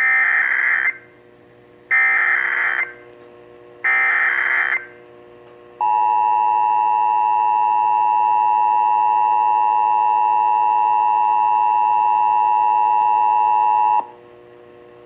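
Emergency Alert System SAME header: three bursts of about a second each of warbling digital data screech, about a second apart. Then the steady two-tone EAS attention signal sounds for about eight seconds and cuts off shortly before the end, opening a Required Monthly Test.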